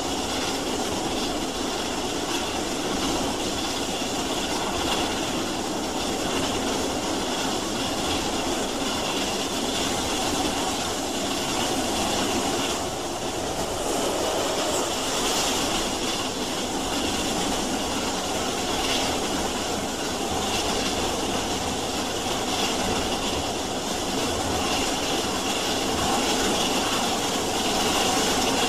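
Recorded sound of a moving steam train: a steady, even rush of running noise with no distinct beats.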